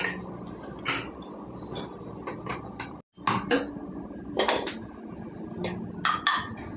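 Cooking utensils knocking and clinking against a pot: a string of sharp knocks and clinks at uneven intervals. The sound drops out briefly about three seconds in.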